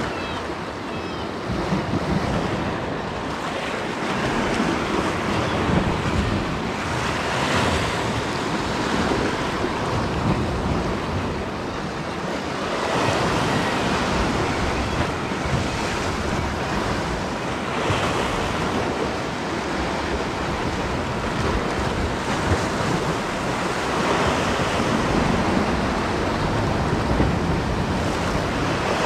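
Sea swell surging and breaking against the rocks close below, a steady rushing wash that swells up every five or six seconds as each wave comes in.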